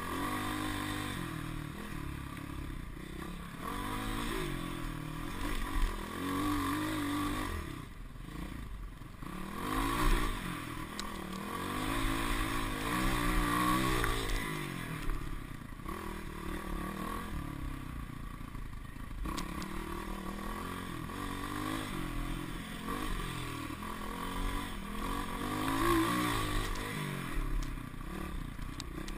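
Dirt bike engine revving up and down as the bike is ridden over rough trail, its pitch repeatedly rising and falling, with rushing noise and rattling from the ride.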